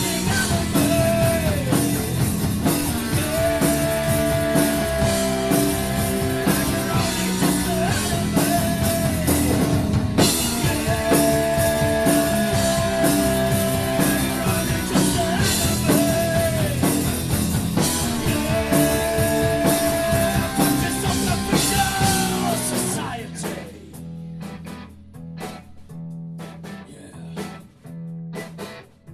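Rock band playing with drum kit, guitars and bass under a long held melody line that slides between notes. About 23 seconds in, the full band drops out and a quieter guitar plays on alone.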